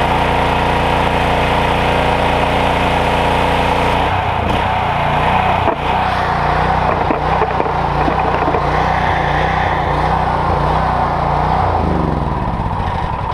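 Petrol pressure washer with a 14 hp, 420cc Loncin G420 engine running at full revs. The note is steady at first, then about four seconds in it turns less even and wavers for the rest.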